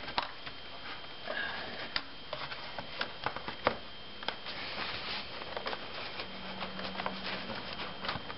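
Rubber air intake duct being worked back onto the plastic air filter housing by hand: scattered light clicks, knocks and rubbing of rubber and plastic, with a brief low hum about six seconds in.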